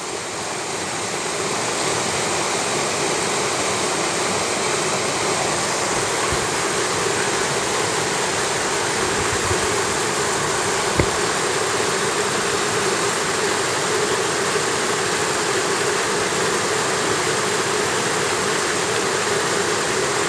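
Mountain stream water running fast over rocks, a steady rushing noise that fades in over the first two seconds. A single sharp click sounds about eleven seconds in.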